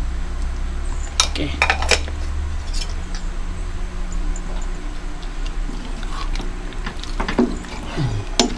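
Metal ladle clinking and scraping against an enamel cooking pot while a thick chicken stew is stirred: a cluster of sharp clinks about a second in, and a few more near the end.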